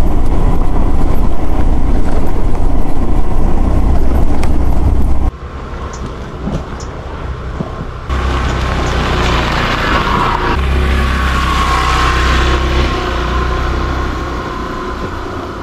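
Suzuki scooter riding over a rough dirt track, its engine and the jolting under a heavy low rumble of wind on the handlebar microphone. About five seconds in the sound cuts off suddenly to a quieter scene, then the scooter is heard coming up the track from a distance against a steady hiss of wind.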